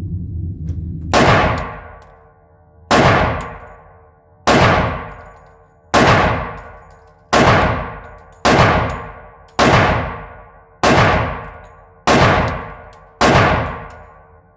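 Glock 20 pistol firing 10mm Auto, ten single shots about one and a half seconds apart, each a sharp bang with a ringing tail.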